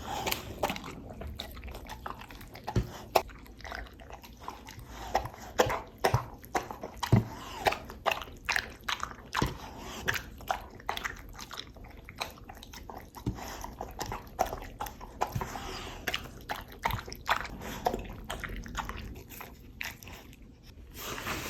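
A dog chewing and crunching a treat: irregular crisp crunches and clicks of teeth, coming in quick runs with short pauses between.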